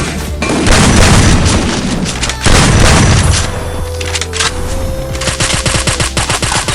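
Video-game automatic gunfire: two heavy stretches of shooting in the first three seconds, then a run of rapid shots near the end, over background music.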